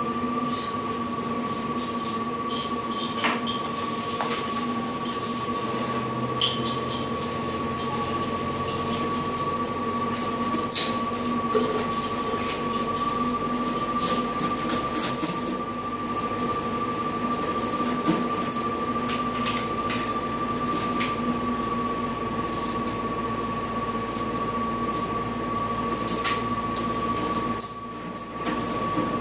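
A steady machine hum with a high whine over a lower drone, broken by scattered clicks and knocks. It dips briefly near the end.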